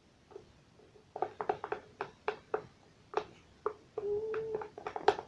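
Slime and plastic tubs being handled: a string of short taps and sticky clicks, with a brief squeaky tone about four seconds in.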